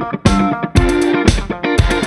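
Background music with a steady beat of about two a second.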